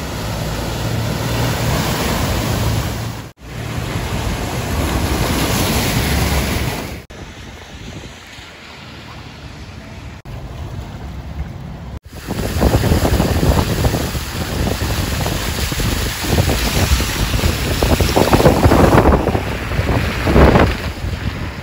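Wind buffeting the microphone over splashing, sloshing floodwater as a car drives through it, in several short clips cut one after another; the buffeting is strongest and gustiest in the second half.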